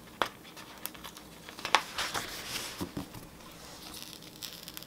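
Paper planner sticker being peeled off a planner page and handled. A scatter of short paper crinkles and rustles, the sharpest a little under two seconds in.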